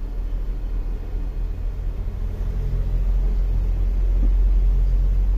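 A steady low engine rumble with a deep hum, growing louder about three seconds in.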